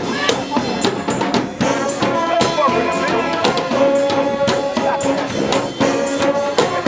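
Live street brass band playing, horns holding long notes over drums and shaken percussion with a steady beat.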